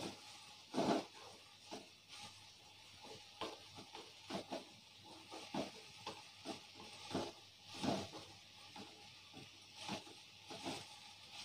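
Wooden spatula scraping and knocking against an aluminium kadai as sliced okra is stirred and tossed, in irregular strokes, loudest about a second in and again near eight seconds. A faint steady sizzle of the okra frying in oil runs underneath.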